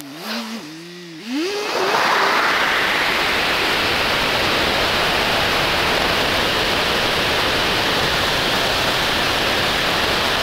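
Wind rushing over the camera microphone of a moving motorcycle, a steady loud noise. In the first second or so, before the wind takes over, the engine note rises and falls as the bike pulls away.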